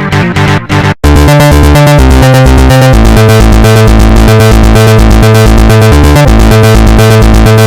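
Background music: an electronic track with synthesizer keyboard chords over a steady pulsing bass beat. About a second in, the music drops out for an instant and switches to a new track.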